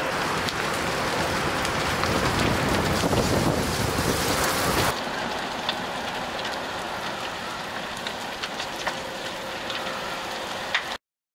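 A house and cars burning in a wildfire: a steady rush of flames with scattered crackles and pops. About five seconds in, the sound shifts abruptly to a quieter burn with sharper pops, then cuts off near the end.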